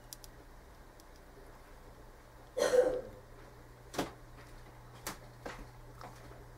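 Small handling noises from fly tying at the vise: a short breathy rush about two and a half seconds in, then a few sharp little clicks, over a steady low hum.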